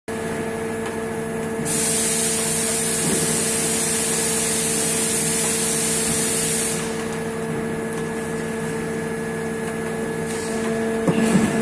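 Automatic bottle filling and high-pressure-processing line running: a steady machine hum with fixed tones, joined by a high hiss from about two to seven seconds in. A few clatters sound near the end.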